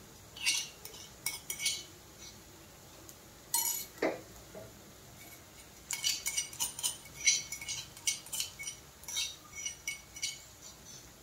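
Steel spoon clinking and scraping against a small steel container as crushed green chilli is scraped out of it: a string of light metallic clinks and taps, a few near the start and a busier run in the second half.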